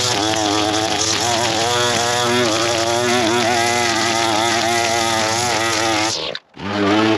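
Gas-powered two-stroke string trimmer running, its engine speed rising and falling as it cuts along the ground. Near the end the sound breaks off for a moment and a steadier engine at an even pitch takes over.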